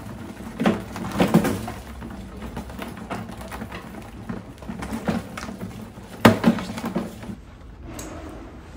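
Many rats scrambling over a plastic bin trap: a steady scratching and shuffling of claws on plastic, broken by several sharp knocks and clatters, the loudest a little over six seconds in. It quietens near the end.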